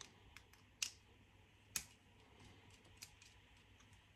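Faint clicks and ticks of a small screwdriver working the screw terminals of a boiler's plug-in wiring connector as a link wire is taken out, with two sharper clicks about one and two seconds in.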